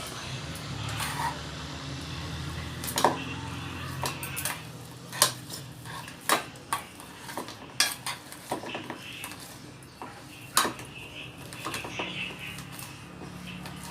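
A utensil clinking and knocking against the side of a pot while boiled potatoes are being mashed, in separate irregular strikes about once a second.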